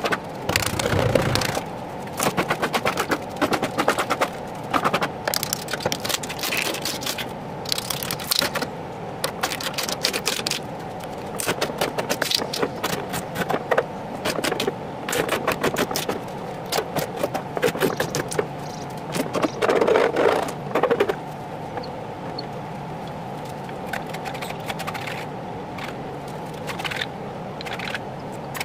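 A hand tool scraping against a wooden MDF subwoofer enclosure in bursts of rapid strokes, with short pauses between bursts, over a steady hum.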